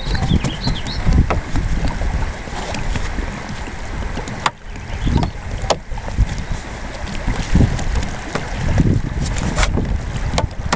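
Wind buffeting the microphone in gusts, with a few sharp clicks and knocks as the plastic panels and frame tubes of a folding hard-shell kayak are handled and fitted.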